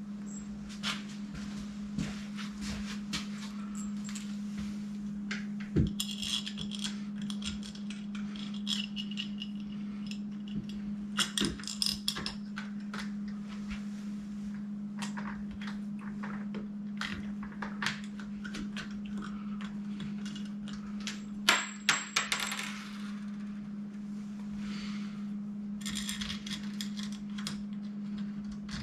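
Scattered clicks, clinks and light rattles of small metal lock hardware and screws being handled and fitted while assembling an electronic deadbolt, with a few sharper clusters of clinks around the middle and about two-thirds in. A steady low hum runs underneath.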